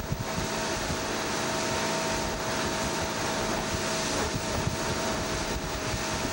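Tow boat's engine running steadily at planing speed, mixed with wind and rushing water, heard from aboard the boat: a constant noisy drone with a faint steady whine through it.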